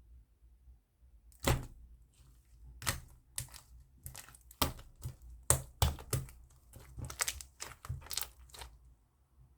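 Slime being worked by hand, making a run of sharp pops and clicks. They start about a second and a half in and come irregularly, roughly two a second.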